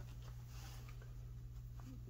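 Quiet bench room tone with a steady low electrical hum, and soft rustling and a few faint ticks from hands handling a plastic electronic tuner and its flex cable on a silicone mat.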